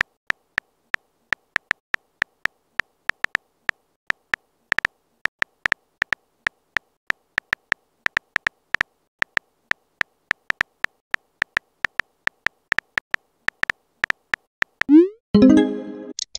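Phone-keyboard tap sounds of a texting app, a quick irregular run of clicks, about three or four a second, one per typed letter. Near the end, a short rising electronic swoop is followed by a brief, louder synth tone lasting about a second.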